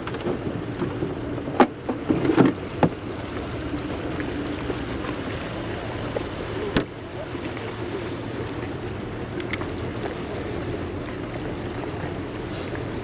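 Outboard motor idling with a steady low hum. A few sharp knocks and clatters come in the first three seconds and once about seven seconds in.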